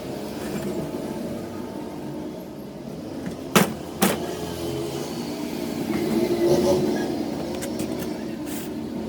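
An engine running steadily, with two sharp clicks about half a second apart midway through.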